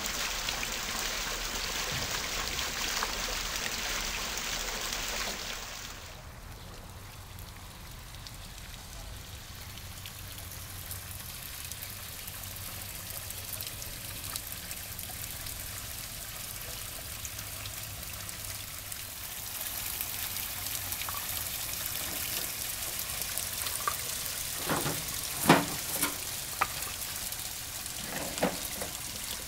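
Pond waterfall water splashing and falling in a steady hiss, louder for the first few seconds and then softer. A few sharp clicks near the end.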